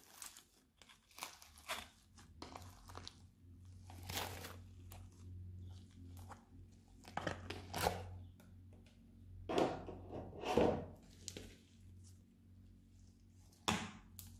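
Slime packed with small flat square pieces being squeezed, lifted and stretched by hand, giving irregular crunching and crackling bursts, with louder clusters about four seconds in, around seven to eight seconds, around ten seconds and near the end.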